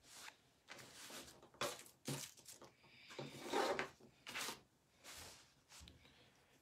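A string of short, irregular rustles and scrapes, loudest a little past the middle.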